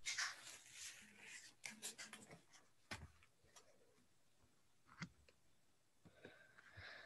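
Near silence: room tone with a brief rustle at the start and a few faint, scattered clicks.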